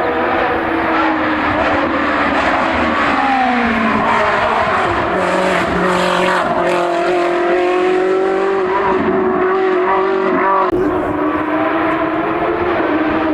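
Hill-climb race car engine at high revs, its pitch sliding down over the first few seconds, then held high and rising again, with a sudden break near the end like a gear change.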